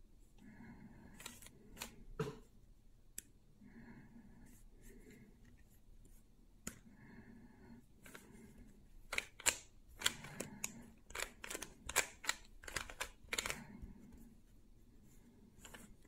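A Rubik's Cube's plastic layers being twisted by hand, clicking and clacking as they turn. The turns are sparse at first, then come in a quick run of clicks from about nine to fourteen seconds in.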